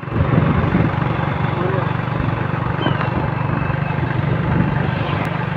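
Vehicle engine running steadily with a low, finely pulsing drone, mixed with wind and road noise, heard from on board the moving vehicle.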